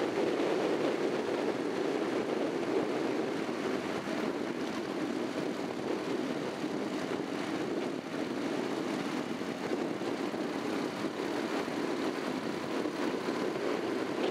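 Steady drone of a Honda NC700X motorcycle's parallel-twin engine under way, mixed with wind rush on the bike-mounted camera, with no rev changes or sudden sounds.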